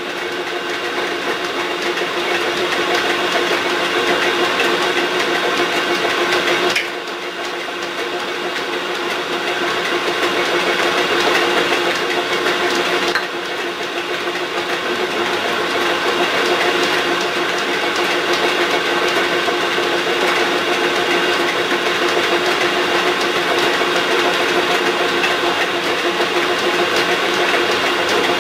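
Geared-head drill press running with a steady gear whine and hum while a countersink cuts into brass from underneath. The sound drops briefly about seven and thirteen seconds in, then builds back up.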